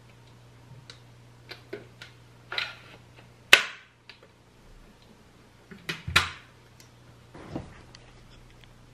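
Clicks, knocks and scuffs of hard plastic being handled: the clear dust bin of a Dyson V11 cordless vacuum. The loudest are two sharp snaps, about three and a half and six seconds in.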